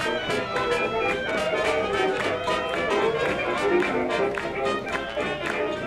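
Band music with brass instruments playing over a steady beat.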